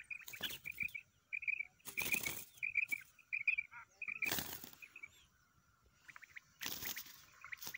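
A live quail held in the hand beating its wings in four or five short bursts, about two seconds apart, over steady quick chirping of birds.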